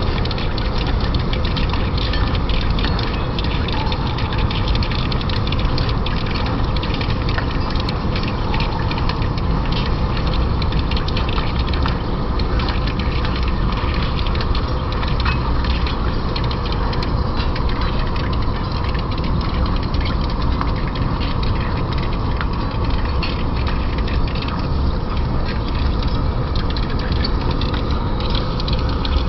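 Lathe running steadily while a cutting tool turns a 40Kh alloy-steel shaft journal. The machine's drone carries a fine, continuous crackle of clicks.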